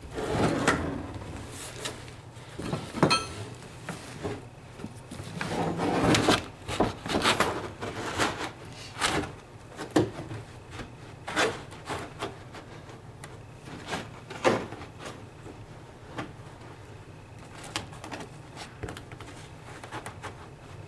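Carpet being handled and pressed into place on a wooden stair: irregular knocks and scrapes with the rustle of the stiff carpet backing.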